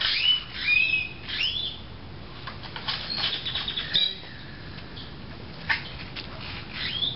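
Small birds chirping in short rising and falling calls, most in the first second and a half and again near the end, with a few sharp clicks.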